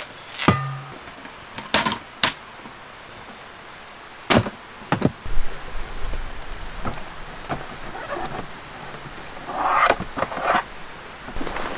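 Camping gear being handled on a folding metal table: a series of sharp knocks and clicks as items are set down, then a brief rustle as a hard case lid is opened, with faint insect chirps between.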